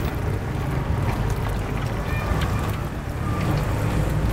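Bundles of sempolan skewers deep-frying in a wide pan of hot oil, the oil bubbling and sizzling as they are stirred, over a steady low rumble.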